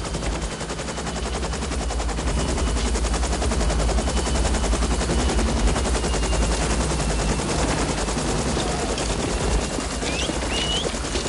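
UH-1 Huey helicopter setting down close by, its rotor beating in a rapid, even thudding that swells over the first couple of seconds and then holds steady, mixed with machine-gun fire.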